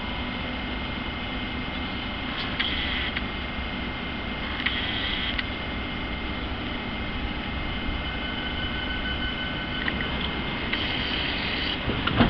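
London Underground Jubilee line 1996 Stock train approaching on open track: a steady rumble of wheels on rail. Three short hissing bursts come through it, a thin squeal is held for about two seconds near the two-thirds mark, and there is a knock at the very end.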